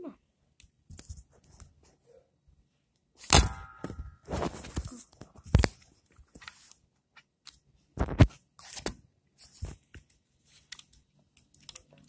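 Plastic toy foam-dart blaster being handled: three loud, sharp plastic clacks spread through, among lighter clicks and rustling and scraping.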